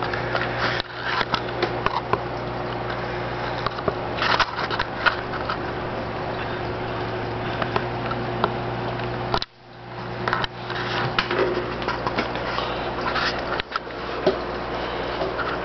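Steady low hum and hiss of aquarium powerhead pumps moving water, with scattered clicks and crackles, and a brief drop in level about nine seconds in.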